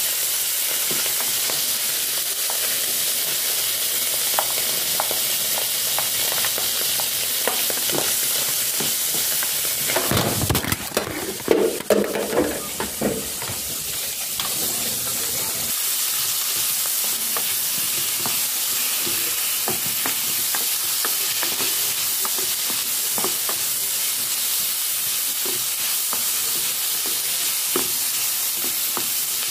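Pork pieces sizzling as they fry in an electric cooker's non-stick pot, stirred with a wooden spoon that clicks against the pot now and then. About ten seconds in, a few seconds of louder knocks and clatter break in, then the steady frying hiss carries on.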